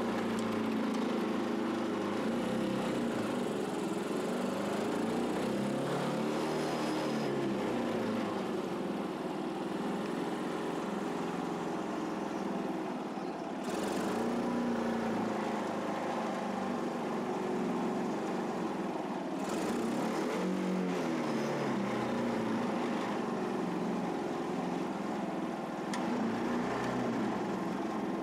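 Motorcycle engine fitted to a small tractor, running as the tractor is driven, its engine speed rising and falling several times.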